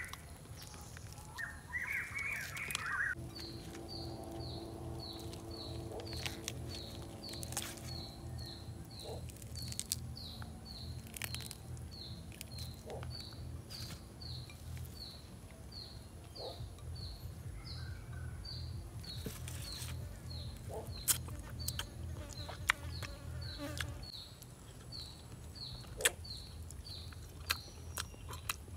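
Forest insect calling: a short high chirp repeating about one and a half times a second. A fly buzzes for the first half, and there are scattered clicks of the roast chicken being torn apart and eaten.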